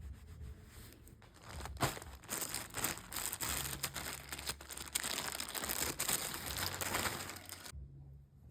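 Packaging crinkling and rustling as it is handled and opened, a dense crackle that starts about a second in, with a sharp snap near two seconds, and stops shortly before the end.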